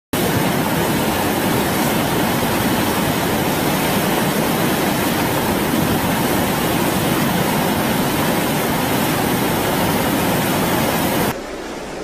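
Loud, steady rushing noise, cutting off abruptly about eleven seconds in.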